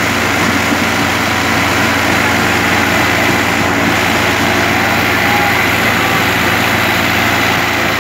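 Two tractors' diesel engines running hard and steadily under heavy load in a tug-of-war, their rear tyres spinning and digging into the dirt.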